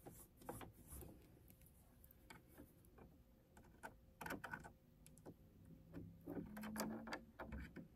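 Faint, scattered small clicks and taps from fingers handling small metal and plastic parts of a Janome 7330 sewing machine as it is put back together around the throat plate; the clicks come more often about halfway through.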